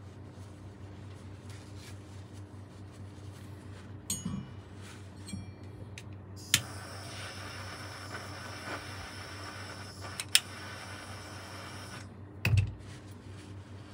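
Repair work on a saxophone: small metal clicks and a brief ringing clink about four seconds in, then sharp clicks and a steady hiss with a high whine from about six to twelve seconds, and a dull thump near the end, all over a steady low hum.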